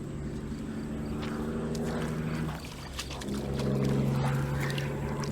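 A motor running with a steady low hum; it fades briefly about two and a half seconds in, then comes back louder. A few light clicks and knocks over it.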